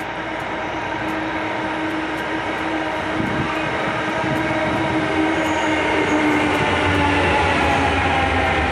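Metro train pulling into an underground station, growing steadily louder as it arrives, with a steady whine in several tones over the running noise and a deep rumble building as the cars pass.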